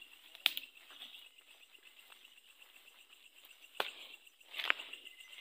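Night insects chirring steadily in a high, continuous trill, broken by three sharp clicks: one about half a second in and two close together near the end.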